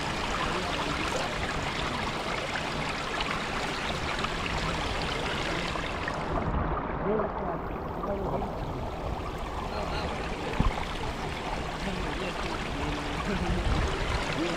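Steady rush of river water, with one brief knock about two-thirds of the way through.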